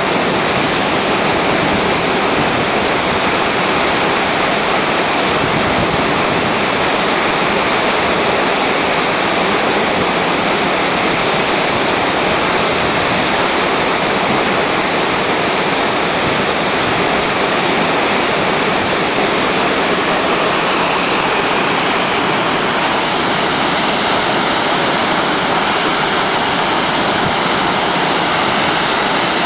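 Waterfall's steady, loud rushing of falling water, unbroken throughout.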